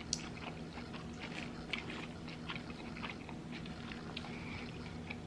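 Chewing a burger: small irregular wet clicks and crunches from the mouth. A low steady hum runs underneath.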